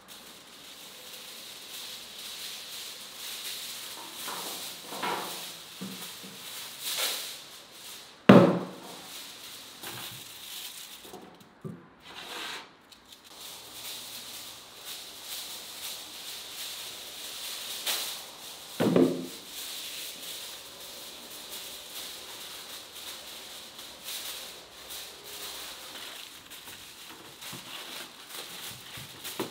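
Aluminium foil rustling and crinkling as it is unrolled and pressed around the edges of a metal baking tray. A few knocks cut through, the loudest about eight seconds in and another about nineteen seconds in.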